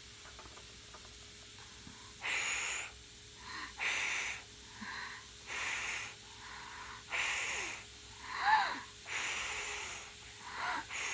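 A young child blowing out in short, breathy puffs, about eight of them, with a brief rising squeak of voice about two-thirds of the way through.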